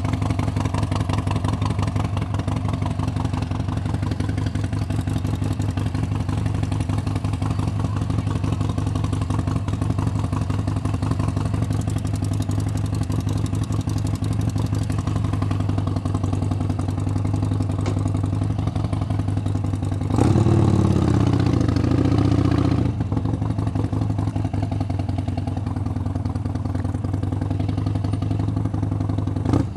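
Harley-Davidson Sportster 72's V-twin engine idling with a rapid, steady beat, heard close from on the bike. About two-thirds of the way in it grows louder for a few seconds, its pitch dipping and rising.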